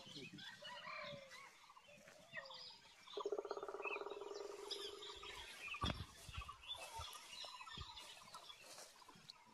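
Otter calling: a wavering, whining squeal held for about two seconds, starting about three seconds in, as the otters crowd together feeding at the water's edge. Birds chirp faintly throughout, and there is a dull thump about six seconds in.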